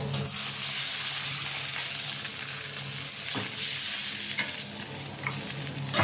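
Onion, green pepper and garlic sizzling in a hot wok while a metal wok ladle stirs them, with a few light clinks of the ladle against the wok.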